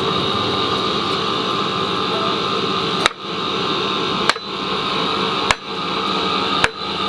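Four sharp knocks about a second apart as the butt of a wooden hoe handle is struck down to seat the forged iron hoe blade firmly on it, over a steady hum and hiss.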